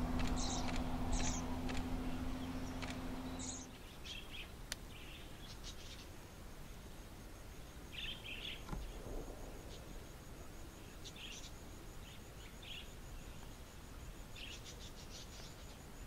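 Wild budgerigars giving short, scattered chirps. A low steady hum underlies the first few seconds and stops abruptly.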